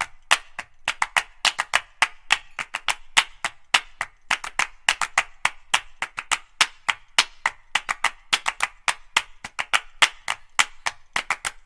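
Rapid sharp clicks or taps, about four a second at an uneven pace, with little low end.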